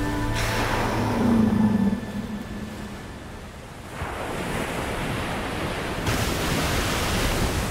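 Sea water rushing and splashing around a breaching humpback whale, with a brief loud low tone about a second in. The rush of water grows louder about four seconds in and again about six seconds in, as the whale crashes back into the sea.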